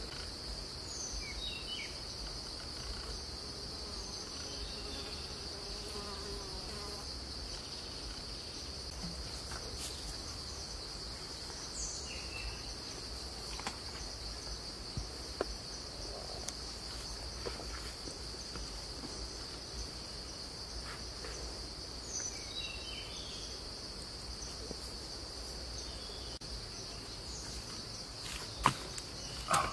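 Steady, high-pitched insect drone that runs unbroken throughout, with a few faint chirps and small clicks over it and one sharp click near the end.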